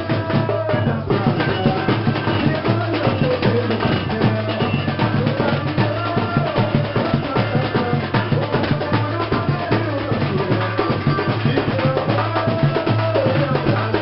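Batucada drumming: a samba-style percussion group playing a steady driving rhythm on bass and snare drums, with a wavering melodic line over the drums.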